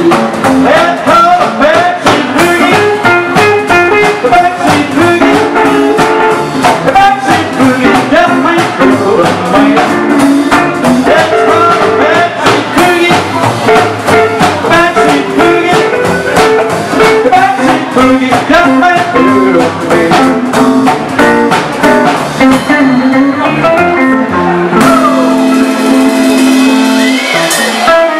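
Live rock-and-roll band playing: acoustic guitar, upright bass and a drum kit keeping a steady beat. About three seconds before the end the drums stop and held guitar and bass notes ring on.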